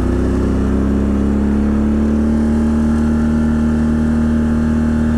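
Can-Am Outlander XMR 1000 ATV's V-twin engine pulling along at road speed, its pitch rising a little over the first second or so and then holding steady.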